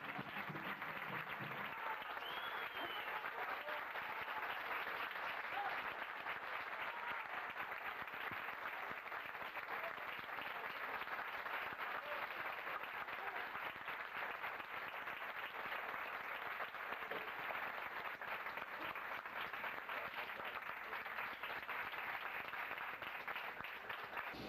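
A seated audience applauding steadily, a dense, even patter of many hands clapping. The last of the music dies away within the first two seconds.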